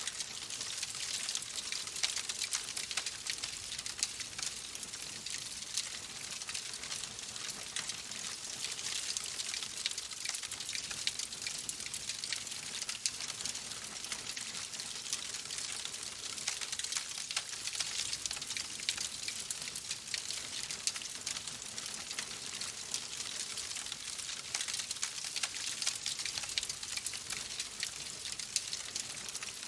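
Oak logs burning in a fireplace: a steady crackle and hiss of the fire, with many small sharp pops and snaps scattered throughout.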